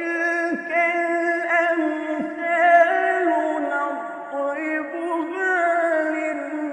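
A single voice chanting in long, ornamented held notes that step up and down between pitches.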